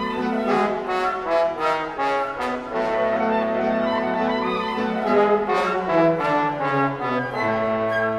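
Orchestra playing live, the brass section to the fore with loud sustained chords and repeated sharp accents; the bass line steps down near the end.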